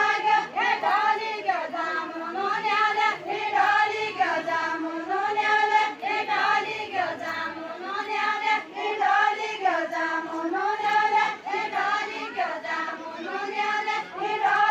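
A group of women singing a Deuda folk song together, unaccompanied, repeating one short melodic phrase about every two seconds.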